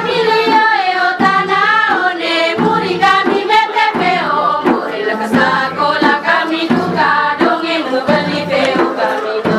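A group of women singing a song together, with a beat of percussion strokes and a low recurring tone under the voices.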